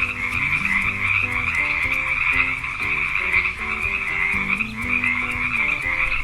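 Frogs croaking in a dense, unbroken chorus, with a simple tune playing softly underneath.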